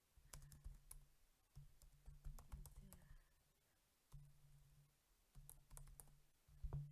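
Computer keyboard typing, faint: a few short runs of key clicks with brief pauses between them.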